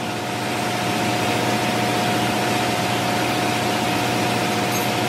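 Steady drone of running machinery in a ship's engine room, with a constant mid-pitched hum over even engine noise.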